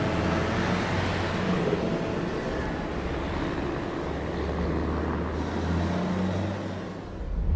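Motor vehicle engine running with road and traffic noise, a steady low hum that swells briefly near the end and then cuts off abruptly.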